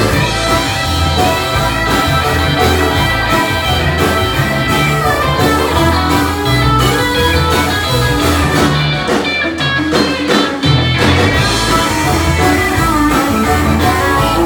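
Live honky-tonk country band playing a bluesy number, with guitar to the fore. The deep bass and cymbals drop away for about two seconds a little past the middle, then come back.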